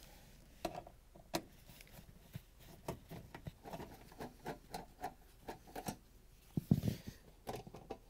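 Hand nut driver backing out the screws of a dishwasher's lower access panel: irregular light clicks and scrapes, with a louder knock and rustle about seven seconds in.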